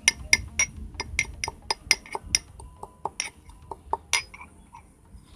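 Metal pestle pounding in a stainless-steel mortar, crushing biscuits to powder: sharp ringing clinks about three or four a second, thinning out and stopping about four seconds in.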